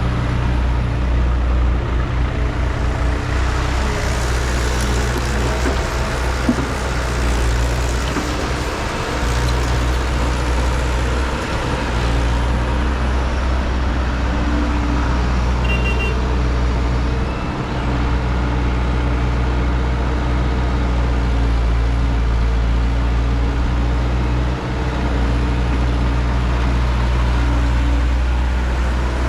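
Heavy machine engine running steadily with a low, even rumble, dipping briefly a few times.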